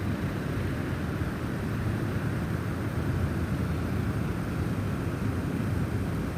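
Snowstorm wind blowing steadily, a deep even noise heaviest in the low range.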